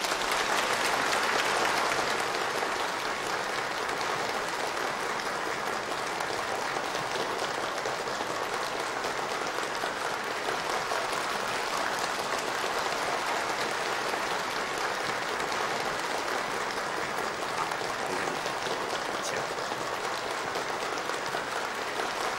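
A crowd of party guests applauding, loudest in the first couple of seconds and then holding steady.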